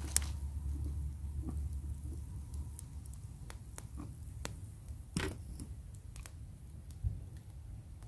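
Quiet woodland ambience: a low rumble that fades out after about two and a half seconds, with scattered small clicks and pops, the loudest about five seconds in.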